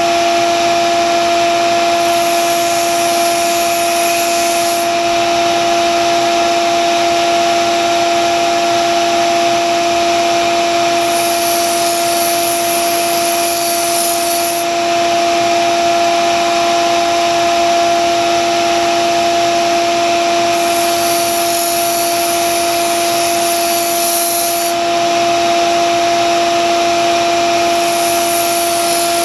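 Grizzly bench belt sander running with a steady motor hum. A vintage Wüsthof knife's steel blade is pressed to the belt in four grinding passes of a few seconds each, each adding a hiss over the hum.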